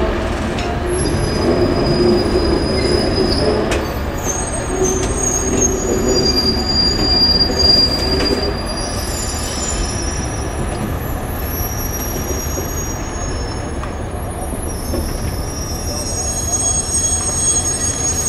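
JNR 189 series railcars rolling slowly along yard track, their wheels squealing in thin, high, wavering tones that come and go over a steady rumble of wheels on rail.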